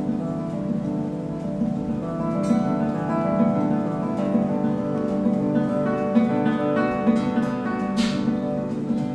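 Nylon-string classical guitar played fingerstyle in a minimal, ambient style: a fast, even repeated plucking pattern under sustained, ringing notes. A brief hiss falling in pitch near the end.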